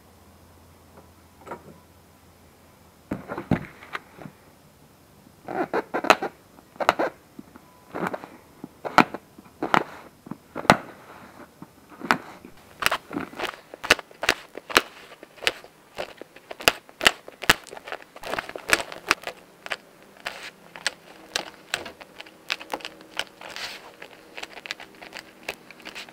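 Upholstery staples being prised out of a dirt bike seat's plastic base with a flat-bladed tool, each staple popping free with a sharp click or snap. The clicks come sparsely at first with some scraping and handling of the old cover between them, then faster in quick succession from about halfway in.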